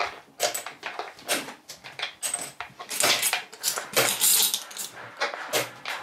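Small seashells and pebbles clicking and clattering as they are handled and dropped, many light knocks in quick succession with a denser rattle in the middle.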